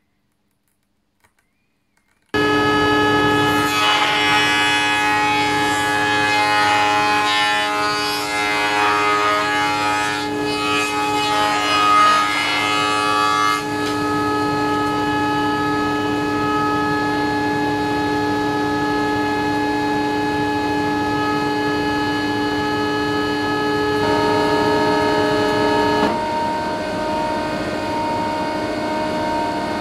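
Woodworking planing machines running with a steady, many-toned whine, starting abruptly about two seconds in. For roughly the first ten seconds there is a rough cutting noise as burl wood is fed over a jointer. Near the end the tone changes as a thickness planer runs.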